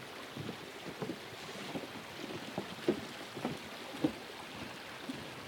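Footsteps on a wooden boardwalk, irregular knocks about two a second, with wind rushing on the microphone.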